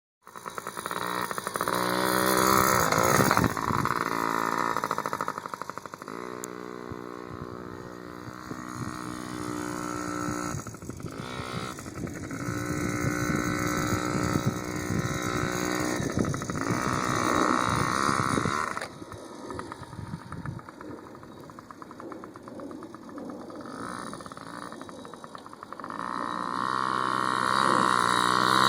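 Motorcycle engine running and revving, its pitch rising and falling as it speeds up and slows. It grows louder and fainter several times, as if the bike rides away and comes back.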